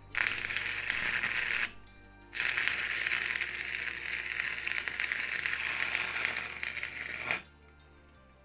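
Electric arc welding on thin sheet steel: two runs of dense, steady crackling, a short one of under two seconds and a longer one of about five seconds, the arc held long enough on the thin metal to burn through it. Background music plays underneath.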